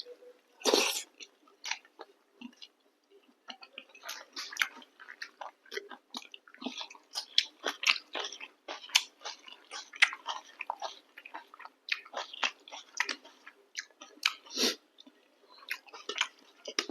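Close-miked chewing and biting of chicken curry with chapati: irregular wet smacks and clicks of the mouth, with a louder one about a second in.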